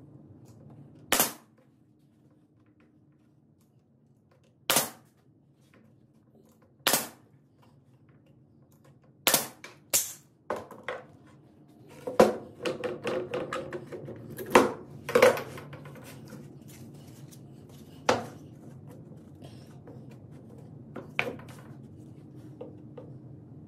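A series of sharp single knocks or shots a few seconds apart, about a dozen in all, with a quick flurry of them about halfway through.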